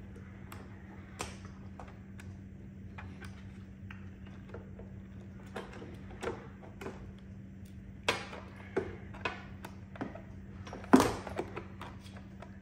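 Scattered small clicks and taps of hand tools, with a screwdriver turning the screws that hold the battery cover on an iRobot Braava 380t robot mop, and metal tools knocking in a plastic tool case. One sharper knock near the end.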